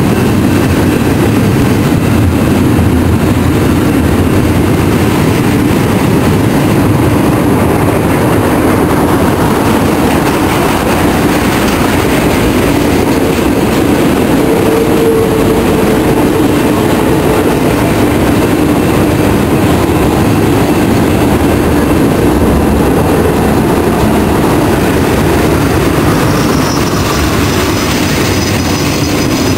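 Union Pacific double-stack intermodal freight train's cars rolling past: a steady loud rumble and clatter of steel wheels on the rails. A thin high squeal comes in near the end.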